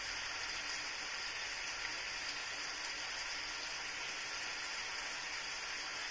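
Chicken pieces sizzling in a frying pan with their soy-and-vinegar sauce: a steady hiss.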